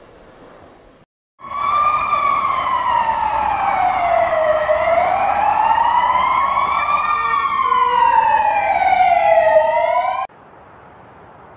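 Emergency vehicle siren wailing, slowly rising and falling in pitch, with a second wailing tone joining out of step about seven seconds in. It starts abruptly after a faint background murmur and cuts off suddenly near the end.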